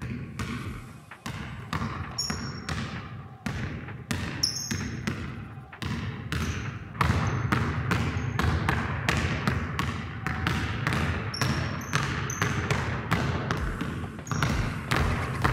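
Basketball dribbling on a wooden gym floor: a fast, uneven run of bounces that echo in the hall, with short high sneaker squeaks now and then. The bouncing gets louder about halfway through.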